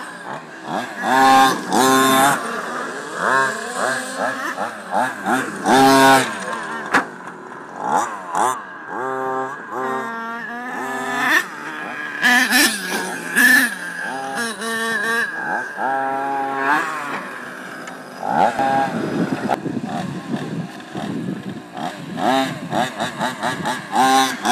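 A radio-controlled monster truck's small engine revving up and dropping back again and again as it is driven, with a steady high tone underneath.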